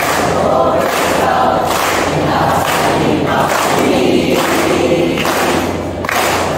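A group of Rover Scouts performing their yell, many voices singing and chanting together in unison, with rhythmic hand clapping.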